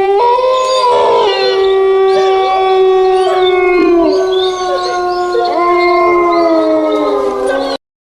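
Howling sound effect: several canines howling together, their long overlapping howls held and gliding up and down in pitch, cutting off abruptly near the end.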